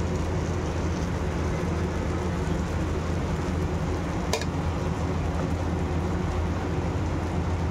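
Chana flour batter sizzling in hot oil on an iron tawa, over a steady low hum, with a single sharp click about four seconds in.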